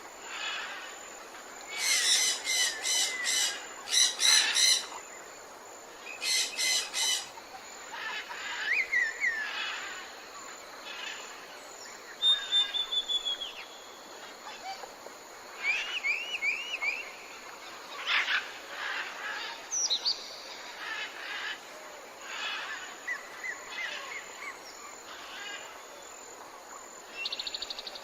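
Several songbirds chirping and singing, with rapid runs of repeated chirps, a short trill and some gliding notes, over a steady soft background hiss.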